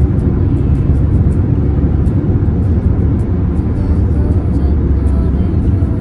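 Steady road and engine rumble inside a car cabin moving at highway speed.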